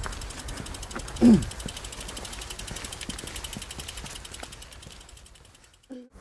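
Mountain bike's rear freehub ticking rapidly and evenly as the bike is wheeled along, under a steady rustle of rolling tyres. About a second in comes a short, loud sound falling in pitch, and everything fades out near the end.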